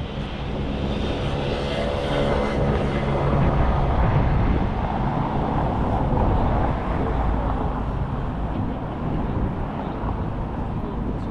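Engine of a passing motor vehicle: a steady rumble with a pitched engine hum in the first few seconds that gradually gives way to street noise.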